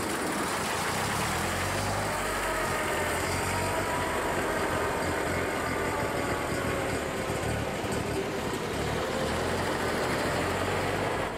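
Veteran pre-1918 car engines running as the cars move off across cobblestones, a steady low hum with a pitch that slowly rises and falls.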